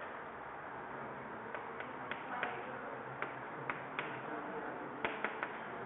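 Chalk tapping and clicking on a blackboard while numbers are written, a string of sharp irregular ticks starting about a second and a half in and coming thicker near the end, over a steady background hiss.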